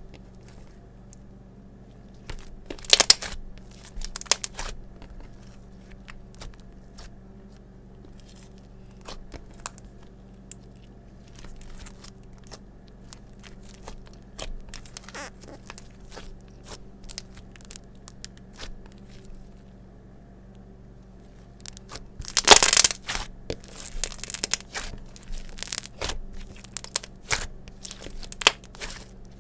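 Hands kneading, stretching and pressing a lump of slime against a stone countertop, making sticky clicks and crackles. It is louder and busier about three seconds in and again for the last several seconds.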